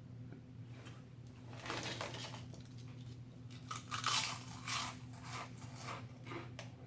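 A person biting and chewing mouthfuls of a large submarine sandwich, with two louder spells of crunchy chewing about two and four seconds in, over a steady low hum.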